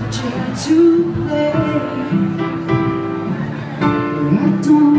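Live music heard from the audience at a concert: an instrumental passage of sustained notes, with no clear vocal line.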